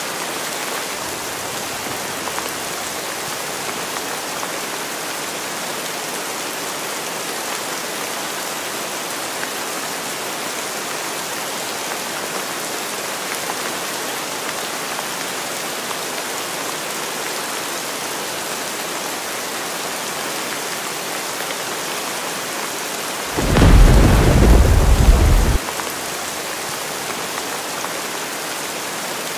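Heavy rain falling steadily, an even hiss throughout. About three-quarters of the way through, a loud, deep rumble of thunder lasts about two seconds and then stops sharply.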